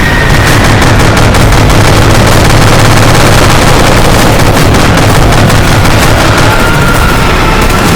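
Dense, continuous machine-gun fire with explosions mixed in, a very loud battle sound effect with no let-up.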